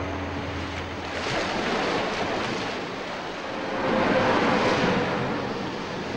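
Ocean surf: waves breaking and washing, swelling twice, about a second and a half in and again around four seconds in.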